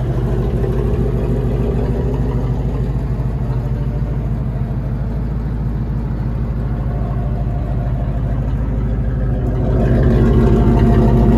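Chevy 454 big-block V8 with throttle-body injection idling steadily, louder near the end when heard from beneath the truck.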